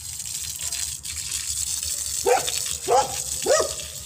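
A dog barks three times in quick succession, short yelping barks a little over half a second apart, over a steady background hiss.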